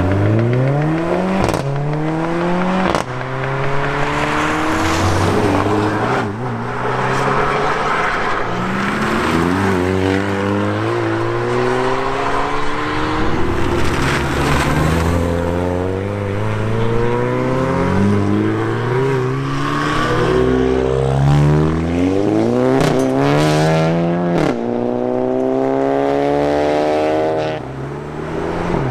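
Hot hatchbacks accelerating hard one after another, each engine revving up through the gears in rising sweeps that step down at every gear change. A few sharp cracks come at gear changes, twice near the start and again later on.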